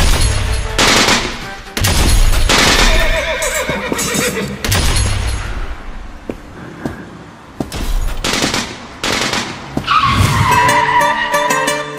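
Dramatic sound design over music: a string of sudden, loud noisy sweeps with a low rumble under them. Near the end comes a falling tone, and a plucked-string tune starts.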